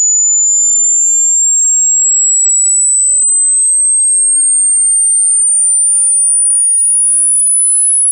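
A single pure, very high tone sweeping slowly and steadily upward in pitch. It is a speaker water-ejection tone, played through a phone speaker or earphone to shake trapped water out.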